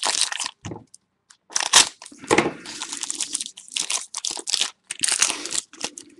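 Crinkling, crunching and rustling of trading-card pack wrappers and box packaging being handled and torn open, in irregular bursts.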